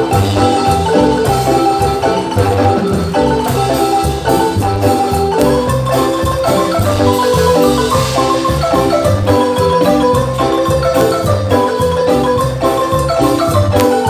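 Marimba music: a melody of rapidly repeated mallet notes over a bass line with an even dance beat.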